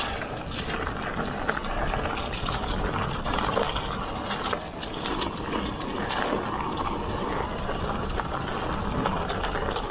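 Ragley Big Wig mountain bike riding fast down a leaf-covered dirt trail: tyres rolling over leaves and dirt, with frequent short clicks and rattles from the bike over bumps and a steady low rumble of wind on the microphone.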